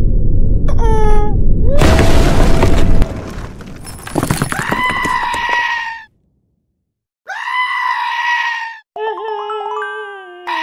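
A loud rumbling crash with a shattering sound for about three seconds, then goat bleats, three separate calls each a second or two long.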